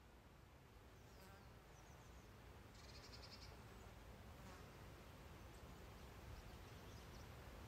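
Faint woodland ambience: a low steady rumble, a few faint high chirps, and a brief high buzzing trill about three seconds in.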